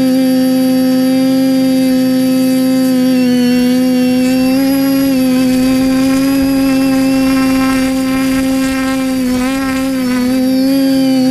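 TBS Discovery Pro quadcopter's 1000 kV brushless motors and propellers humming steadily in flight, the pitch wavering briefly near the end as it manoeuvres.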